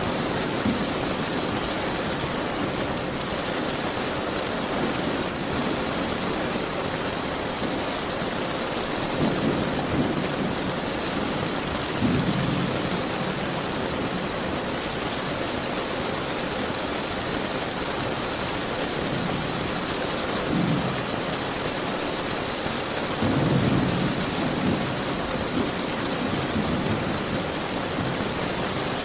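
Steady heavy rain hiss, with several short low rumbles of distant thunder; the longest comes a little past two-thirds through.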